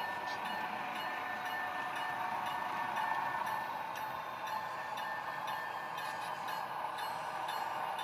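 Model railroad freight train rolling along the track: a steady whirr of the cars' wheels and the locomotive's motor on the rails, with faint small clicks.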